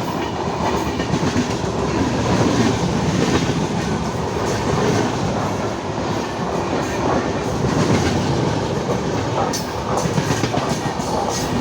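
Train running on the rails: a steady, loud rumble of wheels and coaches, with a few sharp clicks about ten seconds in.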